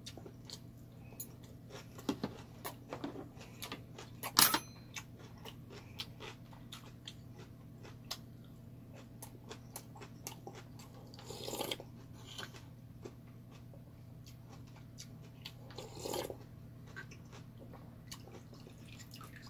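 Close-up eating sounds from a mukbang: a man chewing samgyetang chicken, with many small wet mouth clicks and smacks over a faint steady hum. A sharp clink of a metal spoon against the stone pot, the loudest sound, comes about four seconds in, and two short louder bursts of mouth noise come later.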